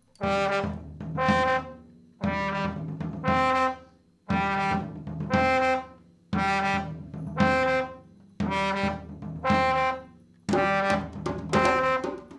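A mixed ensemble led by brass plays a short two-note phrase, the second note higher, over and over about every two seconds, breaking off briefly between repeats. Drum hits fall with the phrases.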